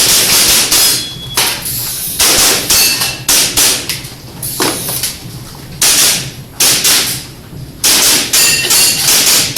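Airsoft pistol firing in quick, irregular strings of shots during a timed practical-shooting stage, with BBs hitting the targets; some hits give a brief metallic ring.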